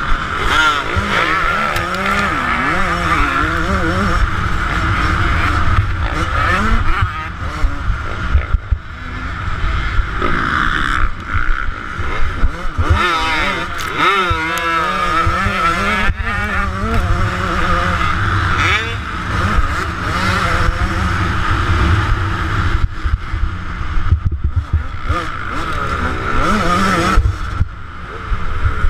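2009 Yamaha YZ125's two-stroke single-cylinder engine being ridden hard, its pitch climbing and dropping again and again as the throttle is opened and closed.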